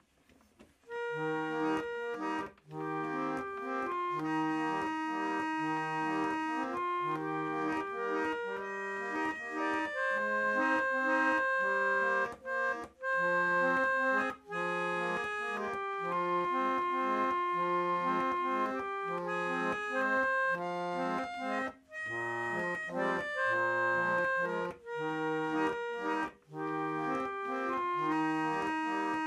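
Hand-cranked Gem roller organ playing a tune: its reeds sound sustained, buzzy notes, a melody over repeating bass notes, as the pinned roller turns. It starts about a second in, with a few brief breaks in the sound.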